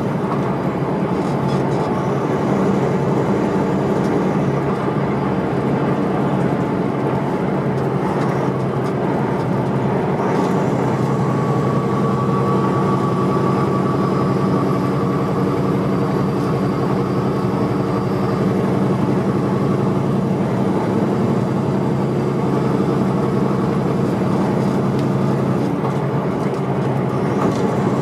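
Semi-truck's diesel engine and road noise at highway cruising speed, a steady drone that holds its pitch throughout.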